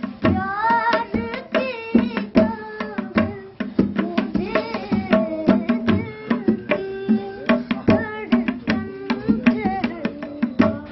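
A boy singing while he plays a pair of tabla drums, the hand strokes falling in a quick, dense rhythm under the sung melody.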